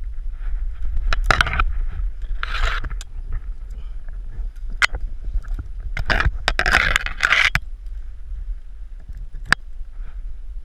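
Someone climbing a tree: hands, clothing and branches scraping and rubbing against rough bark, in several loud swishes with a few sharp clicks or cracks between them, over a steady low rumble on the microphone.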